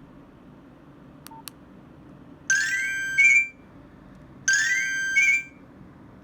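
Nokia 105 mobile phone playing a ringtone through its speaker: a short electronic melody of about a second, with a rising glide and a higher closing note, heard twice about two seconds apart. Two short clicks come just before.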